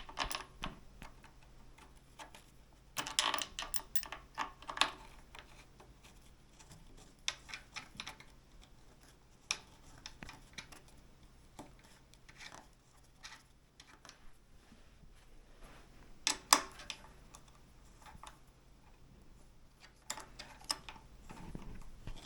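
Irregular clicks and small metallic knocks of screws and hand tools being handled while the parts of an electric scooter's stem are screwed together, in a few clusters with quieter gaps between.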